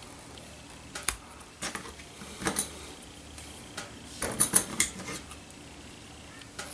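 Tag ends of fishing line being snipped and the knot handled: a few separate sharp clicks, then a quick cluster of clicks about four seconds in.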